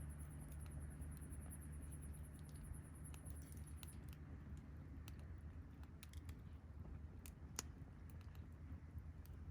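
Campfire of burning wood crackling faintly, with scattered sharp pops, the loudest about two-thirds of the way in. A high, evenly pulsing hiss runs under it for the first four seconds, then stops.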